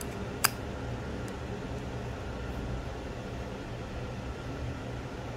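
One sharp click about half a second in as the Microtech Scarab 2 out-the-front knife is handled during reassembly, followed by a few faint ticks, over a steady low hum of room noise.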